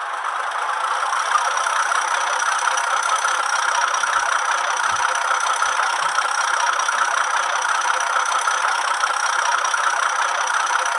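Hornby HM7000 sound decoder in a Class 31 model locomotive playing a steady, rushing diesel sound effect through the model's small speaker, with no bass, swelling slightly in the first second and then holding level; a faint thin high tone runs through it.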